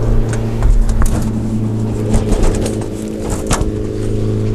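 Scattered clicks and light knocks from handling a solar cooker's metal parabolic dish as it is lifted off its tripod base, over a steady low hum.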